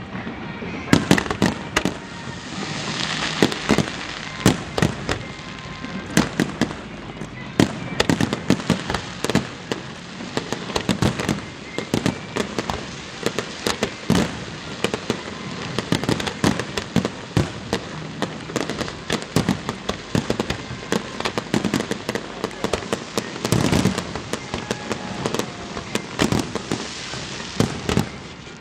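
Aerial fireworks display: a continuous barrage of bangs and sharp crackling bursts, several a second.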